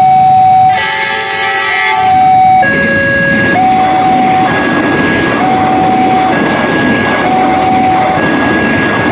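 Level-crossing electronic warning alarm alternating between a low and a high tone, roughly one tone per second. About a second in, a locomotive horn sounds a chord for about two seconds, and a train runs past with steady rolling noise under the alarm.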